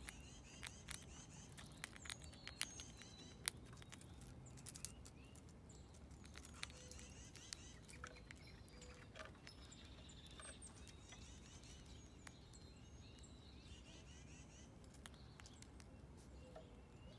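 Faint outdoor ambience with small birds chirping in repeated short calls, and scattered sharp clicks, most of them in the first five seconds.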